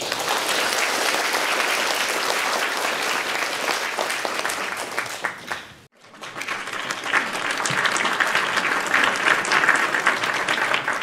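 Audience applauding at the close of a conference talk, a dense steady clapping. It breaks off abruptly about six seconds in and starts again.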